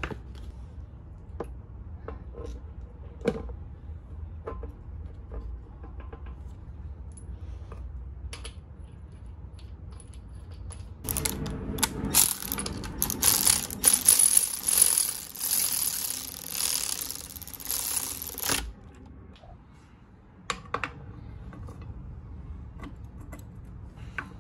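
Light clicks and knocks of parts and tools being handled, then for about seven seconds in the middle a cordless electric ratchet whirs steadily, spinning down the crankshaft pulley bolt on a Honda engine; a few more tool clanks follow.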